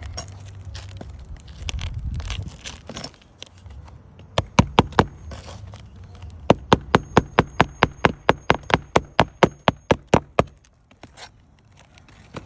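Hammer driving a nail through a replacement roof tile: a few taps, then a quick steady run of about twenty blows, roughly five a second, that stops suddenly. Some rustling and handling noise comes before the hammering.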